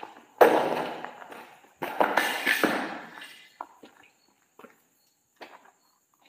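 Two loud, sudden noises, each trailing off over about a second. They are followed by a few faint footsteps on a gritty, rubble-strewn concrete floor.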